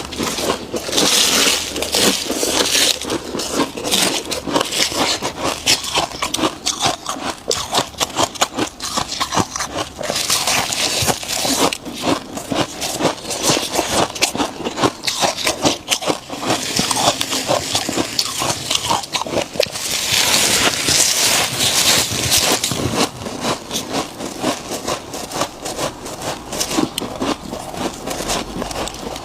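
Freezer frost being scraped and chewed close to the microphone: a continuous rapid crackling crunch, with three longer stretches of harsher scraping about ten seconds apart.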